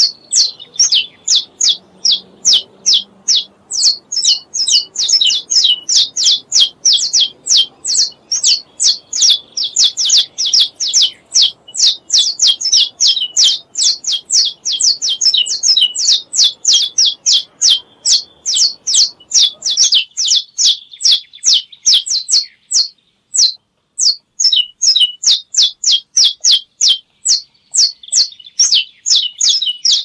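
Saffron finch singing: a long run of sharp, high notes, each sweeping downward, repeated about four times a second, with a brief break about two-thirds of the way through.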